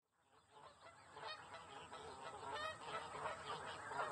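A dense chorus of many overlapping bird calls, fading in from silence over the first second or two, with two short rattling trills among them.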